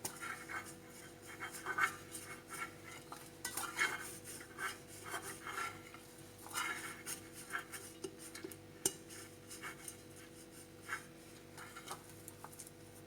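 A baking tray being greased with butter: irregular short rubbing and scraping strokes over the tray, with a faint steady hum underneath.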